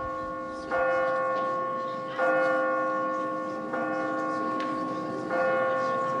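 A single church bell tolling slowly, struck about once every second and a half, each stroke ringing on and fading before the next: four strokes on the same note.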